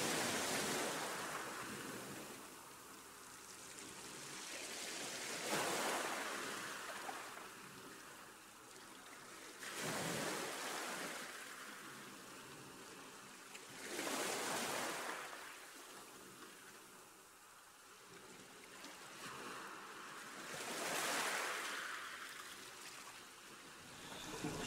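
Ocean waves washing in and drawing back, a swell of rushing water every four to six seconds.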